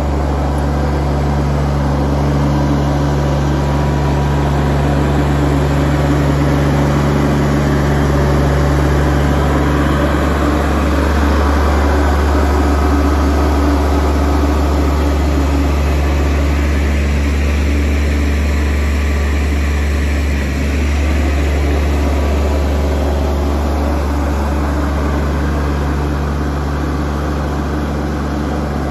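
Kubota L3240 compact tractor's four-cylinder diesel engine running steadily as the tractor is driven about, its note shifting for a stretch in the middle before settling back.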